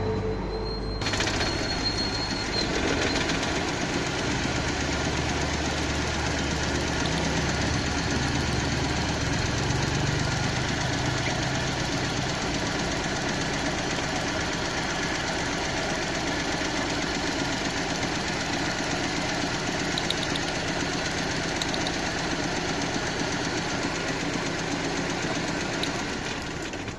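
Car engine running steadily after being started, the engine that the video presents as misfiring. The noise comes in sharply about a second in and drops away at the very end.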